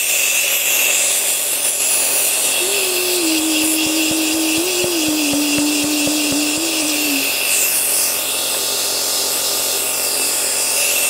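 Compressor nebulizer's electric pump running steadily, a motor hum and drone under a hiss of air through the medicine cup, which has not yet run dry.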